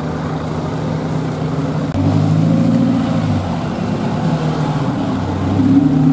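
Off-road 4x4 engine running, revving up about two seconds in, easing back, then revving up again near the end.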